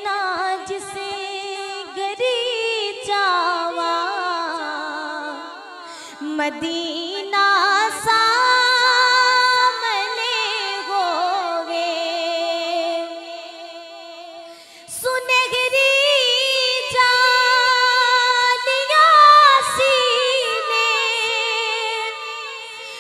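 A woman singing a naat into a microphone, drawing out long melismatic notes with vibrato. The line tails off around the middle, and a louder, higher phrase begins about two-thirds of the way through.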